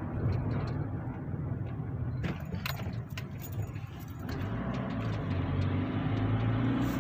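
A car driving, heard from inside the cabin: steady engine and road hum, with a few light clicks and rattles about two to three seconds in.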